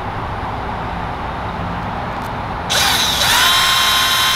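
Power drill with a step bit starting up about two-thirds of the way in, rising briefly in pitch and then running with a steady whine. It is boring out the hole of a small crimp ring terminal to widen it.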